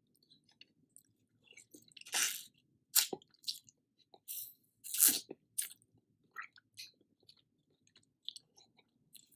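Close-miked eating of spicy seafood noodle soup: chewing and wet mouth sounds with small clicks, and louder short bursts about two, three and five seconds in.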